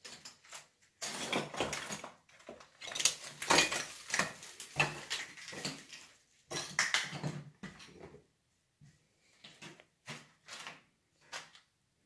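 Footsteps and scuffing on a debris-littered wooden floor: a dense stretch of crunching, scraping and knocking, then separate single steps in the last few seconds.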